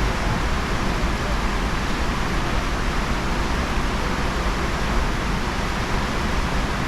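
Steady rushing noise, heaviest in the low end, with no shots or clicks.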